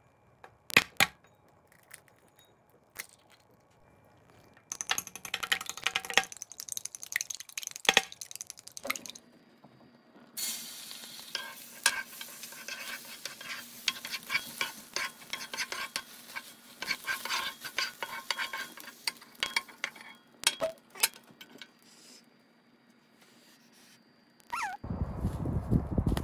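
An egg cracked with a sharp click on the rim of a ceramic bowl, clinking in the bowl, then beaten egg sizzling in a hot nonstick frying pan as a wooden spatula stirs and scrapes it. Near the end, a low rush of outdoor wind noise.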